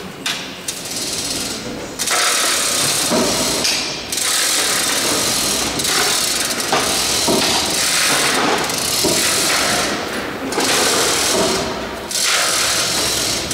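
Pneumatic rivet gun hammering in repeated bursts, about six of them, each lasting one and a half to two seconds with short pauses between.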